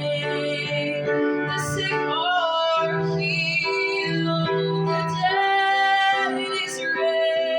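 Worship song: a woman singing held, gliding notes over keyboard accompaniment.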